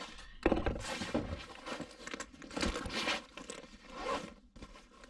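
Rustling and crinkling of packaging and a fabric carry bag being handled, in irregular bursts.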